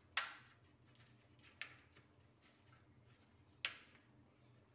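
A brush spreading oil over a galvanized steel baking tray: three short, sharp brushing strokes, about a second and a half to two seconds apart, over a faint steady low hum.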